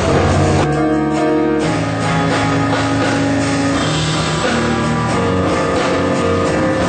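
Jazz trio playing: piano, bass and drums.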